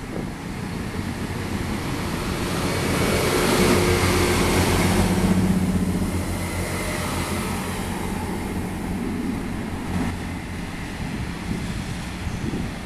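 Class 158 diesel multiple unit running past along the platform, its underfloor diesel engines running. The sound swells to its loudest about four to six seconds in as the cars go by, then eases as the train moves away.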